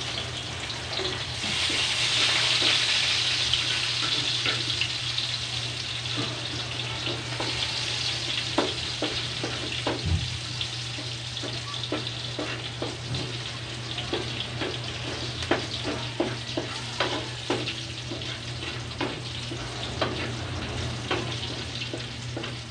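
Chopped garlic sizzling in rendered chicken-skin fat in a wok, the sizzle swelling about a second and a half in, while a wooden spatula stirs it with frequent short scrapes and taps against the pan.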